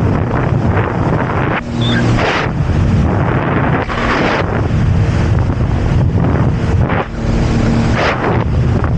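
Jet ski engine running steadily while riding on the sea, with heavy wind buffeting the microphone and repeated splashes of the hull hitting waves.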